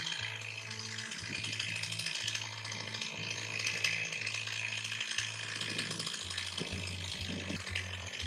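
Background music: a bass line of held low notes changing about once a second, faster near the end, over a steady rattling, shaker-like hiss.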